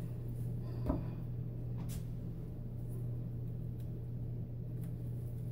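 Quiet room tone: a steady low hum with a few faint, soft clicks.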